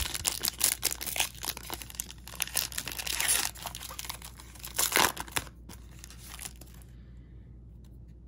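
Foil wrapper of a Panini Prizm baseball card pack being torn open and crinkled by hand: dense crackling, loudest about five seconds in, then dying away over the last couple of seconds.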